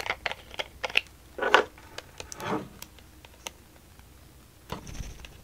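Plastic squeeze tube of peeling gel being handled: several sharp plastic clicks as its clear snap cap comes off, then a few short scratchy rustles as the fingers work at the nozzle.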